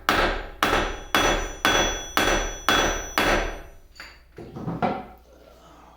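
Hammer blows on the end of a lathe headstock shaft, driving the shaft and its bearing out of the headstock: seven even strikes about two a second with a faint metallic ring, then two lighter taps near the end.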